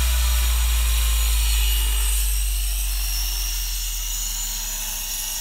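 Large T700-class radio-controlled helicopter in flight: a deep, steady rotor drone under a high-pitched motor and gear whine, growing gradually fainter.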